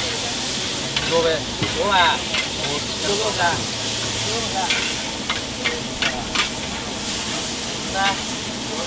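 Rice noodles sizzling steadily in a large hot iron wok, with a metal spatula scraping and clacking against the pan again and again as they are stir-fried.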